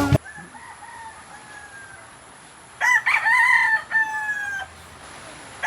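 Rooster crowing: a faint crow at first, then a loud, full crow about three seconds in that drops in pitch at the end.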